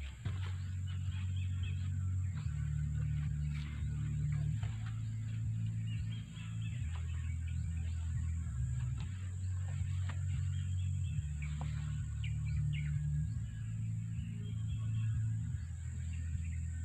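Small birds chirping and twittering in short scattered calls, over a low, slow background music track whose bass notes change every second or two.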